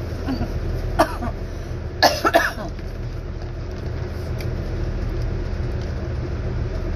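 A short cough about a second in and a louder bout of coughing and throat clearing around two seconds in, over a steady low rumble.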